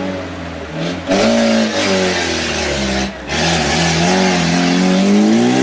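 Off-road vehicle's engine revving hard under varying throttle. The pitch rises and falls, with brief drops about a second in and again near the three-second mark, then climbs toward the end.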